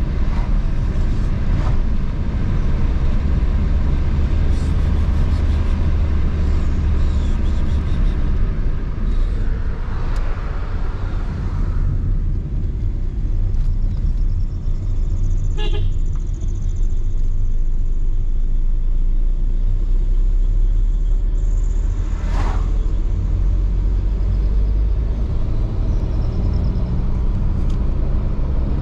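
A car driving along a road: a steady low rumble of engine and tyre noise, with a couple of brief sharp sounds a little past halfway and again a few seconds later.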